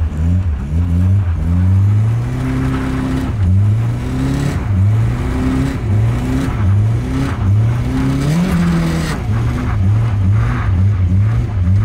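Lada Zhiguli engine revving up and dropping back over and over, about once a second, as the car is thrown sideways in drift slides.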